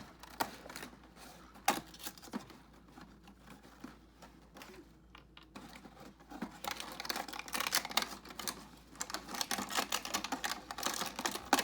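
Scattered clicks and taps of small cardboard and plastic parts being handled, then a dense run of rapid clicking and crinkling from about six and a half seconds in, as a cardboard advent calendar door is opened and a small wrapped toy piece is unpacked.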